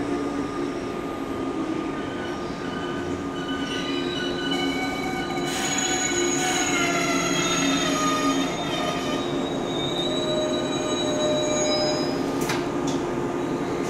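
JR 185-series electric train running on the line, with steady low tones under a general rumble. About four seconds in, several high, ringing tones come in and some slide slowly downward. A couple of sharp clicks sound near the end.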